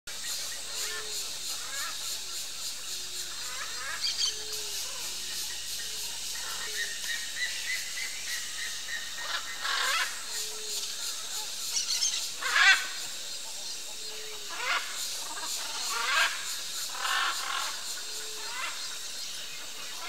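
Red-and-green macaws calling: a series of loud, harsh squawks from about halfway through, the loudest around twelve and a half seconds in. Under them, soft short notes repeat about once a second and a steady high hiss runs throughout.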